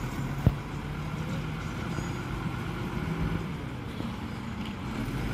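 Tipper truck's diesel engine running steadily while it unloads soil, with one sharp knock about half a second in.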